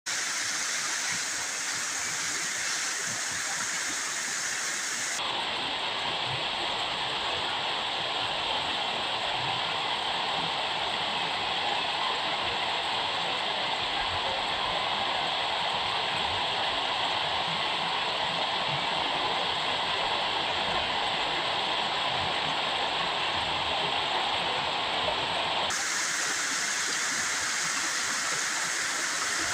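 Waterfall on a river, making a steady, even rush of falling water. The tone of the rush changes abruptly about five seconds in and again near the end.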